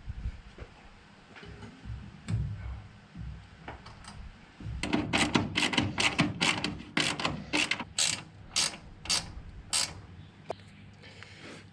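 A hand ratchet clicking in short strokes, about a dozen in an even run of roughly two a second, as a bolt on the pedal assembly is worked. Before that come a few scattered low knocks and clunks of metal parts being handled.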